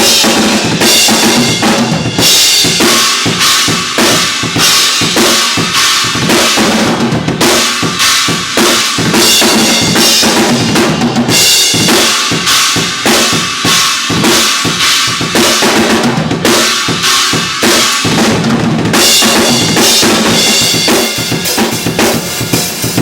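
Acoustic drum kit played in a steady beat during a recording sound check, with the pattern shifting every few seconds.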